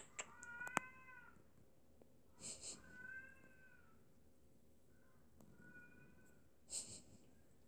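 British Shorthair cat meowing faintly: three drawn-out, high meows spread across the few seconds. Two short breathy noises fall between them, and there are a few sharp clicks at the start.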